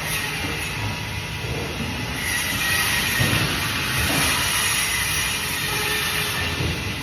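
Band saw running and cutting fish: a steady mechanical noise with a faint high tone held throughout, and a few low knocks as the fish is handled.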